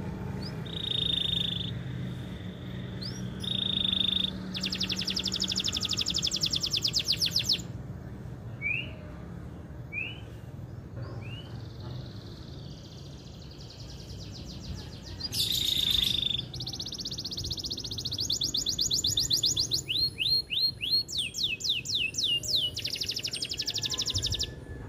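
Male domestic canary singing a long song: several fast rolling trills of two to three seconds each, broken by short rising chirps.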